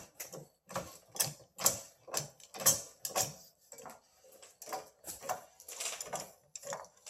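Floor jack being pumped under a car's front K-frame: repeated clicks and clacks, about two a second, with a brief lull about four seconds in.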